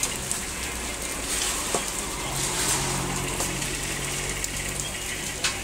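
Steady background hum and hiss, with a low drone that swells about two seconds in and fades out a couple of seconds later, and a couple of light clicks.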